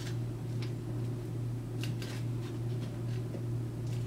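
Hobby knife slicing through a foam sheet along a metal ruler: a few short scratchy cutting strokes, about half a second in and again around two seconds in, over a steady low hum.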